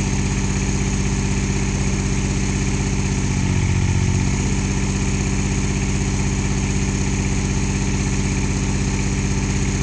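The engine of the crane holding the vacuum glass lifter runs steadily with an even pulse, swelling slightly about three and a half seconds in.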